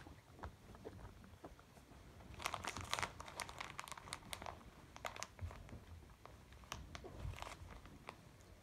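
Crinkling and crunching crackles as a pet raccoon moves about on a bed, densest about two and a half to three and a half seconds in, with scattered single clicks after.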